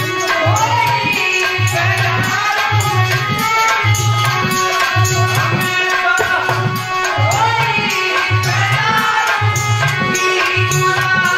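Harmonium and a hand-played drum performing a folk tune with a steady beat, with a voice singing over them.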